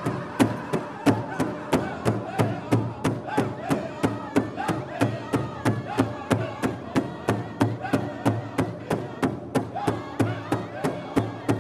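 Powwow drum group: several men striking a large hide-covered drum in unison, a steady beat of about three strikes a second, while singing together.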